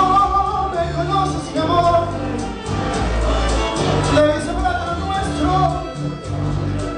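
A man singing a melody into a handheld microphone, amplified over backing music with a steady bass line.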